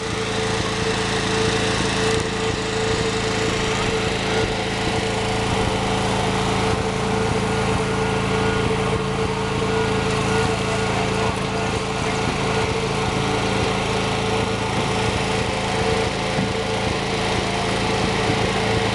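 A small engine running steadily at a constant speed, a droning hum that holds one pitch.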